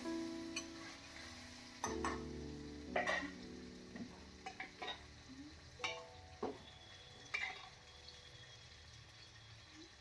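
A metal spatula scraping and clinking against a steel kadhai, a few separate knocks and scrapes spread over several seconds, the loudest about three seconds in, over a faint sizzle of frying masala. Soft background music runs underneath.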